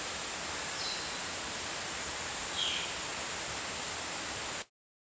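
Steady even hiss with no clear source, broken by two brief faint high chirps, about a second in and again about two and a half seconds in. The sound cuts off abruptly near the end.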